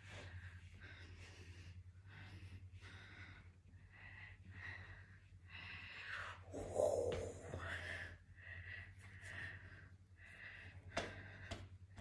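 A person's breathy gasps and snorts in short repeated bursts, the loudest about seven seconds in, over a steady low hum.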